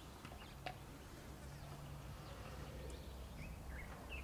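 Faint garden ambience: scattered short bird chirps over a low, steady insect buzz.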